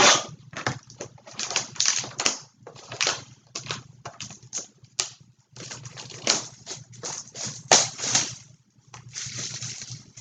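Sports card packs and their cardboard box being handled: irregular rustling and scraping with light taps as packs are pulled out of the box.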